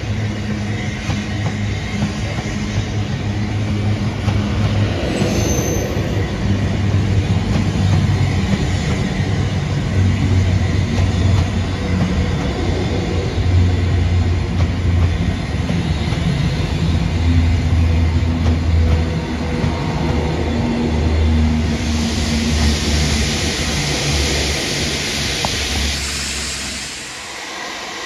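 Avanti West Coast Class 390 Pendolino electric train moving past, with a steady low electric hum and wheel and rail noise. A brief high squeal comes about five seconds in.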